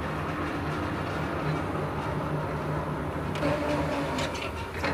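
Electric drives of level-crossing boom barriers humming steadily as the barrier arms rise, with a sharp knock near the end.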